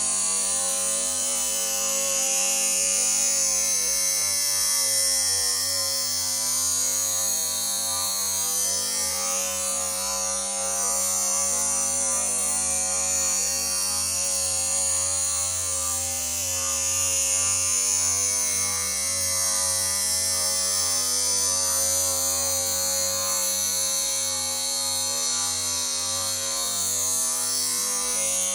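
Small electric motor running steadily with a high grinding hiss that swells and fades: a knife blade being ground on a powered sharpening wheel.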